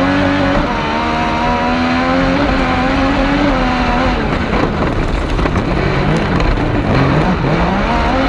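Yamaha MT-09 three-cylinder engine of a kartcross racing car, heard on board while racing. The engine note holds high and fairly steady for about four seconds, then drops and climbs again several times as the driver lifts off and accelerates.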